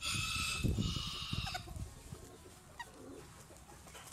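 A chicken giving a drawn-out, raspy call in two long parts over the first second and a half.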